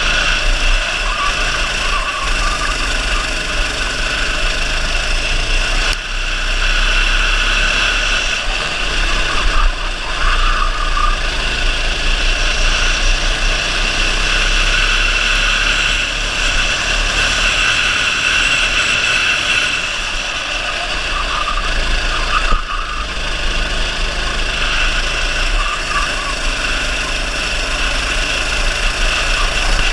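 Go-kart engine running continuously at racing speed, heard from on board the kart, with a few brief dips in loudness.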